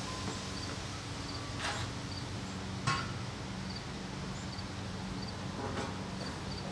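Outdoor ambience with an insect chirping in short, evenly spaced bursts, over a steady low hum. A few light knocks come about two and three seconds in and again near the end.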